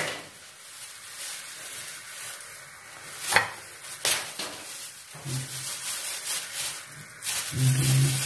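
Marinated chicken pieces being pushed onto metal skewers: low rubbing and handling sounds with two sharp clicks of the skewers a little past three and four seconds in.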